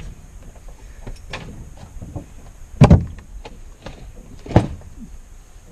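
Scattered knocks and clicks of handling, with two louder thumps about three and four and a half seconds in.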